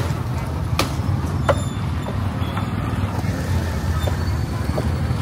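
Street-market din with a steady low rumble, broken by sharp chops of a butcher's cleaver on a wooden chopping block. The two clearest come about a second in and half a second later, and fainter knocks follow.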